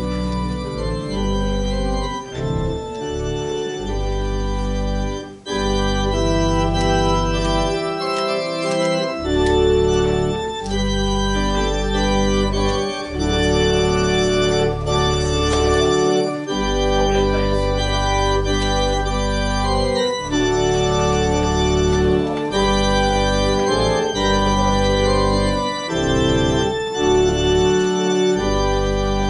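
Church organ playing a prelude: held chords over a moving bass line, with a few short breaks between phrases.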